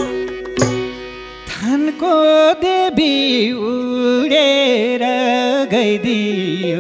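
Live Nepali folk dohori band music between sung verses: held harmonium chords and madal drum strikes, then from about a second and a half in a gliding, bending melodic lead line over the held notes.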